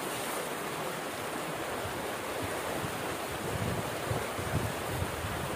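Steady rush of water pouring out of a culvert into a shallow stream, with a few soft low bumps in the last couple of seconds.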